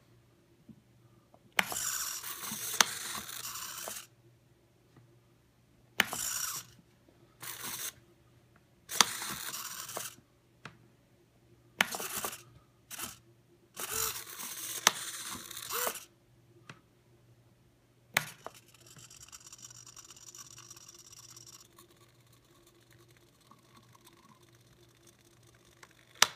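Arduino-driven useless box working: its small servo motors whir in repeated short spurts as the lid lifts and the nail arm swings out to flip the toggle switch back, with sharp clicks of the switch and lid. A single loud click comes about eighteen seconds in.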